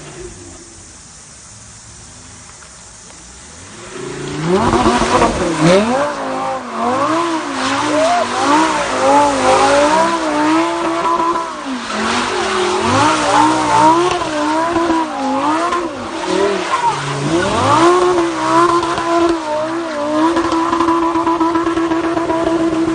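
Lamborghini engine revving hard, starting about four seconds in: the pitch sweeps up and falls back again and again, then holds steady at high revs for the last few seconds.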